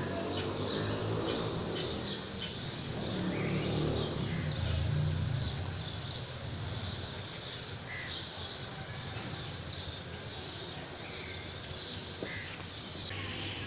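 Outdoor birds chirping and calling again and again. A low background rumble runs under the first five seconds or so.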